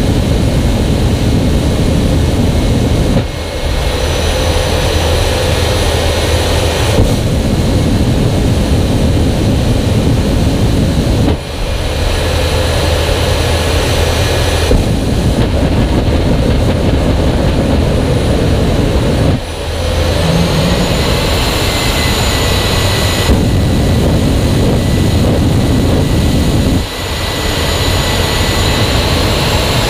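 Jet engine of the Hellfire jet semi truck running loud and steady, heard from right underneath the truck. The sound shifts abruptly every several seconds.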